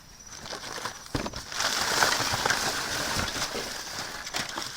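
Trash bags and packaging rustling and crinkling, with scattered knocks, as someone digs through a dumpster. The noise swells about a second in and stays busy until it eases near the end.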